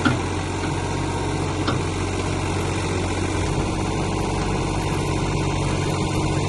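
Old Ford backhoe's engine running at a steady speed, with a short knock right at the start and a fainter one nearly two seconds in.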